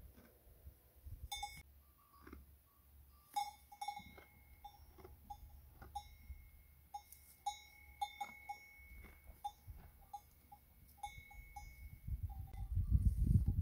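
Livestock bells clinking and ringing irregularly as grazing animals move, some strokes ringing on for about a second. A low rumble comes in near the end.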